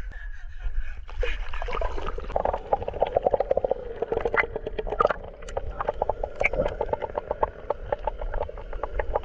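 Muffled underwater sound through a submerged camera: dense, irregular crackling clicks and gurgling beside a net crowded with small fish, starting about a second in as the camera goes under.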